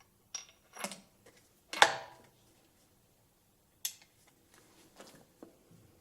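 Sharp metallic clicks and clacks from working a Bergara BA13 TD single-shot break-action rifle, about six in a row, the loudest about two seconds in with a short metallic ring.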